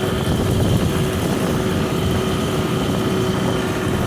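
Farm tractor engine running steadily, with a constant low rumble and a steady tone over it.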